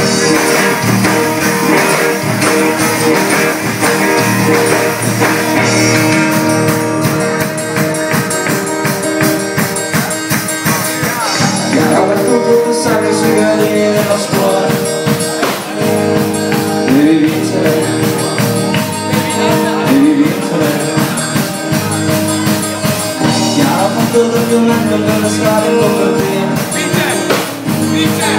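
Live rock band playing: strummed acoustic guitar and electric guitars over a drum kit, the drums' steady beat coming in about six seconds in, with a singing voice.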